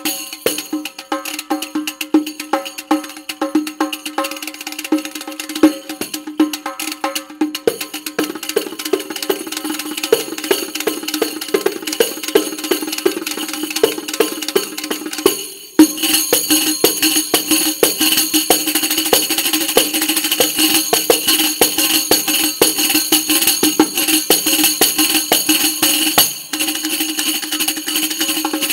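Turkish-style riq (frame tambourine with large brass jingles) played solo: rapid finger strokes on the head and jingles in a fast, dense rhythm, the head ringing under a constant shimmer of jingles. About halfway through the playing briefly drops away, then comes back louder and denser, with another short break near the end.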